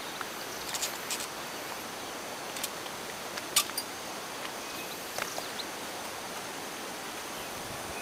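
Footsteps on a rocky dirt trail and rough stone steps: scattered irregular clicks and scuffs over a steady outdoor hiss, the sharpest about three and a half seconds in.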